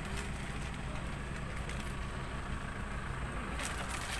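A steady low engine hum, like a motor vehicle idling nearby, under a general background of street noise.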